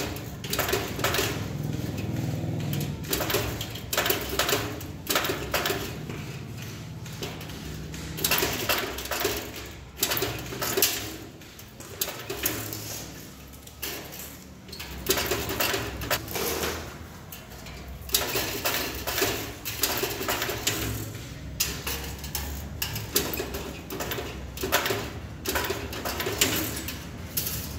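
Stainless steel spot welder joining strips to the rims of slotted steel basket bowls: irregular clicks and clinks of the electrodes and steel parts, with a low hum in long stretches.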